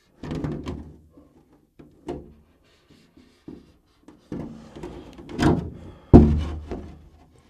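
Clear polycarbonate 1/10 short course truck body shell being handled and flexed on a towel, giving a series of hollow plastic thunks and knocks, the loudest just after six seconds in.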